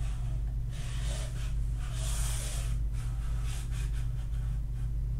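Steady low electrical hum on the recording, with a few soft breathy noises near the microphone.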